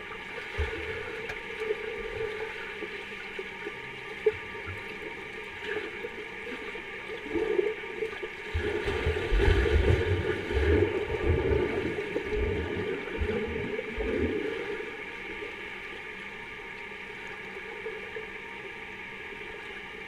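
Water churning and bubbling, heard from underwater in a swimming pool as a swimmer kicks off the wall, loudest and rumbling about halfway through, over a steady hum.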